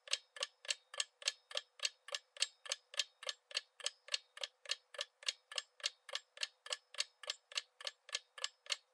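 Quiz countdown-timer sound effect: a clock ticking steadily at about four ticks a second, thin and crisp.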